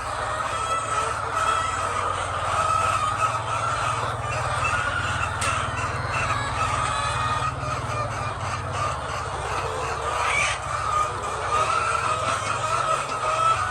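A large flock of egg-laying hens clucking continuously, many birds calling over one another, with a steady low hum underneath.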